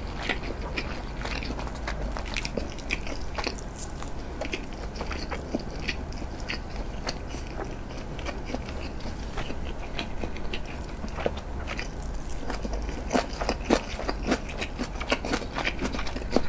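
Close-miked chewing of a nori-wrapped rice ball (onigiri): many short wet mouth clicks and small crunches, coming more often and louder in the last few seconds.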